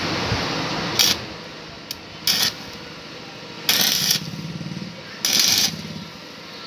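Stick welding arc crackling in short bursts, four of them a fraction of a second each, about every one and a half seconds, after a steadier crackle in the first second. A steel T-handle bar is being tacked onto a broken exhaust stud in a motorcycle cylinder head so the stud can be turned out.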